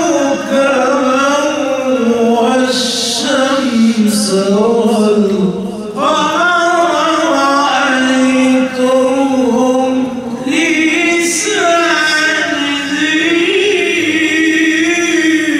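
A man's voice reciting the Quran in the melodic tajweed style into a microphone: long, ornamented phrases whose pitch glides up and down, with short breaks between phrases.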